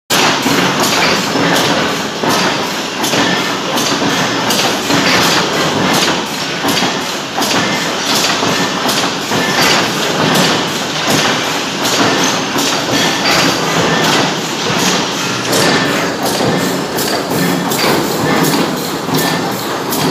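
Press-shop machinery running: a steady industrial din with repeated thuds and knocks coming quickly and unevenly throughout.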